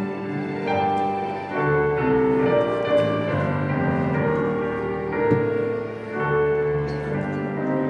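Piano playing a slow hymn introduction: sustained chords changing about once a second over held bass notes.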